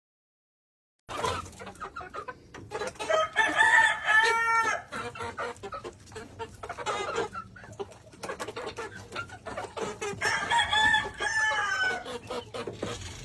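Gamefowl roosters crowing twice, with hens and birds clucking between the crows; the sound starts abruptly about a second in.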